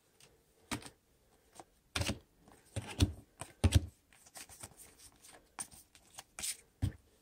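Trading cards handled by hand: irregular short taps and flicks as cards are sorted and set down on a table, with a few firmer knocks among them.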